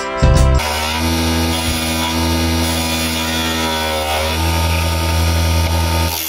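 Small electric motor of a mini wood lathe running steadily with a low hum, while a turning chisel scrapes the spinning wood with a hiss. A snatch of music cuts off about half a second in.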